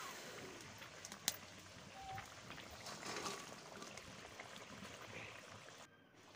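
Faint, steady bubbling and hissing of a thin spice gravy simmering in a metal karai after water has been added to the fried masala, with one sharp tap about a second in.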